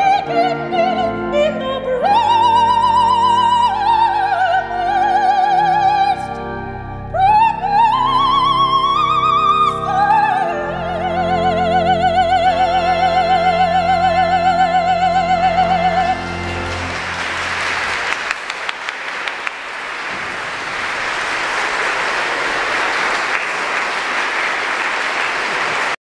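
Operatic soprano with pipe organ accompaniment singing the closing phrases, climbing to a long held high note with wide vibrato that ends about sixteen seconds in. Audience applause follows to the end.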